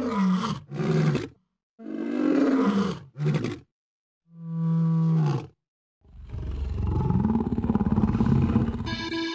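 Lion-roar sound effect in the manner of the MGM logo: five short growls and roars with silent gaps, the fifth held at a steadier pitch, then one long roar about six seconds in that lasts about three seconds.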